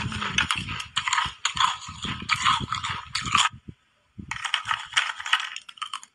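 Close-miked crunching of frozen ice being bitten and chewed: dense, crackling crunches that break off briefly about three and a half seconds in, then start again.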